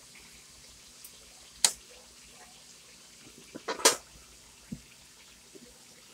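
Metal ladle clinking against a metal wok of vegetables: one sharp clink about a second and a half in, then a quick cluster of clinks a little past the middle and a softer knock after, over a faint steady hiss.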